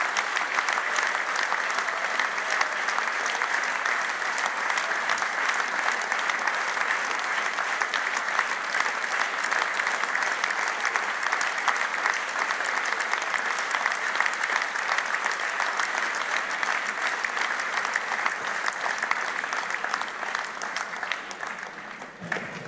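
Large hall audience applauding steadily and at length, a dense unbroken clatter of many hands, easing off slightly near the end.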